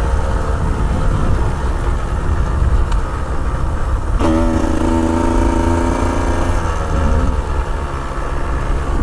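Dirt bike engine running, under heavy wind rumble on a helmet or body-mounted microphone. About four seconds in, the engine settles on a steady note for a few seconds, then drops away.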